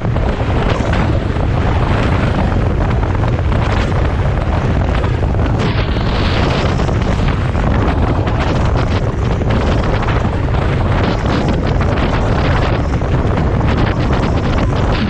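Heavy wind noise on the microphone: a loud, steady rumbling roar that never lets up.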